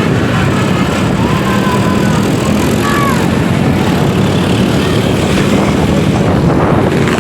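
Steady engine drone with wind rush, as heard riding in traffic close behind a tour bus. A few faint short tones come through about one and three seconds in.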